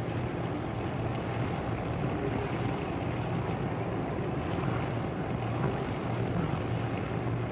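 The steam whistle of the Canadian Pacific liner RMS Duchess of Atholl sounding one long, steady, low blast for lifeboat drill, on a hissy old film soundtrack.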